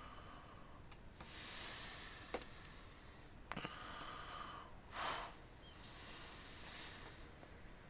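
A person breathing quietly near the microphone: several breaths a second or so long, with a short, sharper snort-like breath about five seconds in. A couple of faint sharp clicks come between them.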